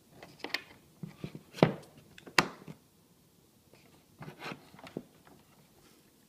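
USB-B cable plug pushed into the USB port on the back of a Numark DJ controller: a run of small plastic-and-metal clicks and knocks, the two loudest about one and a half and two and a half seconds in. A few softer clicks follow around four to five seconds in as the cable is handled.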